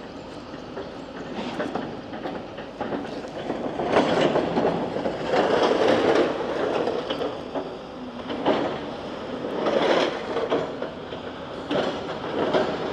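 Demolition excavator pushing and dragging rubble: a rattling clatter of debris and metal that swells and fades several times.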